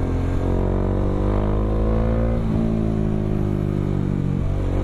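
Bajaj Dominar 400's single-cylinder engine through an Akrapovic M1 slip-on exhaust, running under way; the engine note rises gradually, drops about halfway through, then holds steady.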